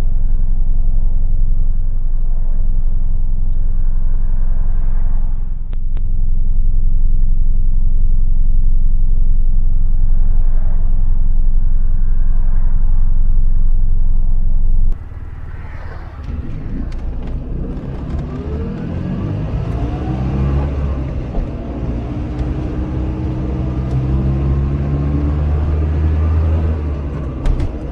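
Polski Fiat 126p's air-cooled two-cylinder engine driving on the road: a loud, steady low drone for about fifteen seconds. After an abrupt change the engine is heard revving up several times, its pitch rising with each gear.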